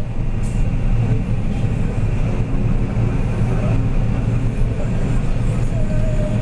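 John Deere 9650 STS combine harvester running steadily under load while harvesting, heard from inside the cab: an even low drone of engine and threshing machinery.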